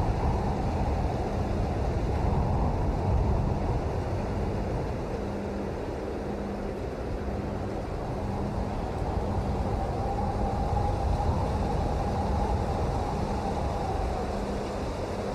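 Steady rain: a dense, low-pitched wash of noise with little high hiss, with a faint steady hum underneath.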